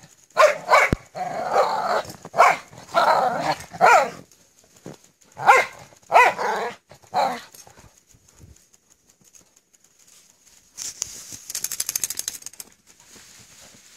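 Jindo dogs play-fighting, barking and growling loudly in quick bursts, then falling mostly quiet; a softer rapid rasping sound comes about eleven seconds in.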